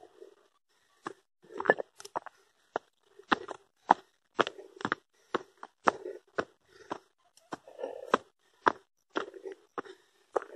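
Footsteps crunching on a steep dirt trail with loose stones, about two sharp steps a second, as someone climbs uphill on foot.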